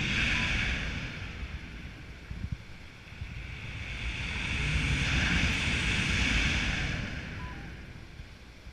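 Wind rushing over the camera microphone of a paraglider in flight, a rushing hiss over a buffeting low rumble that swells in the middle and dies down near the end.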